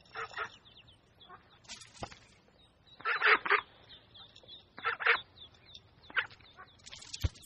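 Mallard ducks quacking in short clusters of quick calls, the loudest group about three seconds in, with a single sharp knock near the end.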